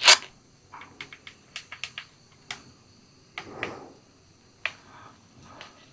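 Scattered sharp clicks and taps, irregular, with a short rustle about three and a half seconds in.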